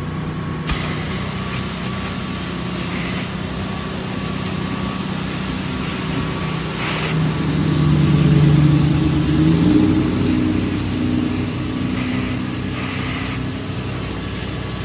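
Pressure washer's engine running steadily, growing louder and higher for a couple of seconds around the middle before settling back.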